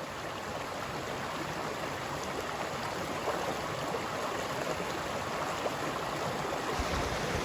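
Steady rushing of a flowing stream, with a soft low thump near the end.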